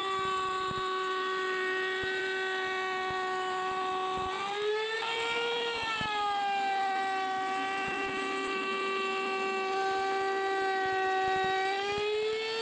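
Compact trim router rounding over the edge of a pine (palochina) board: a steady high motor whine that drops in pitch while the bit is cutting. The pitch lifts briefly about five seconds in and rises again near the end as the bit eases off the wood.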